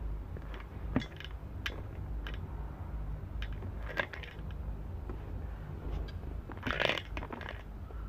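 Handling noise as a camera is moved and set in place: scattered light clicks and knocks, then a short burst of scraping and rustling near the end, over a steady low hum.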